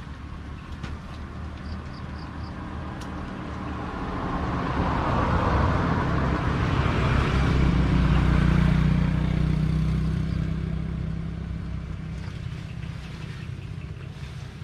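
A motor vehicle passing by, its engine hum and road noise swelling to a peak about eight seconds in and then fading away.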